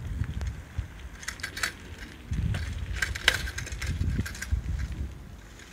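Outdoor wind buffeting a handheld phone's microphone in low gusts, with scattered light clicks and crunches, grouped a little over a second in and again about three seconds in.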